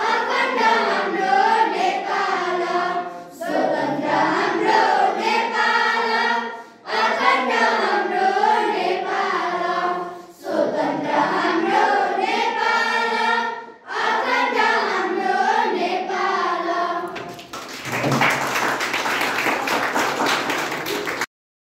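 A class of schoolchildren singing a song together in unison from song sheets, in five phrases of about three and a half seconds each with short breaks between. About seventeen seconds in the singing ends and they clap for about four seconds, which cuts off suddenly.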